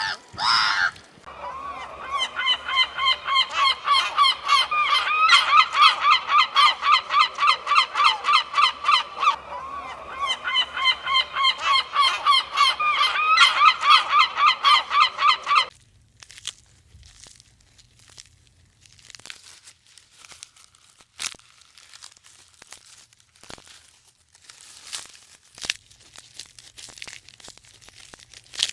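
An animal calling over and over in quick, pitched honks, about three a second. The calls stop suddenly about halfway through, leaving faint clicks and rustling.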